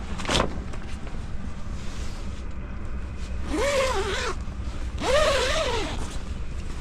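Steady low hum of a running diesel tent heater, with two short rising-and-falling whines, each under a second long, about three and a half and five seconds in.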